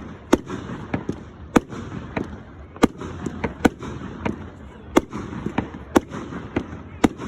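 Fireworks display: a steady run of sharp bangs, a big one roughly every second with smaller pops in between.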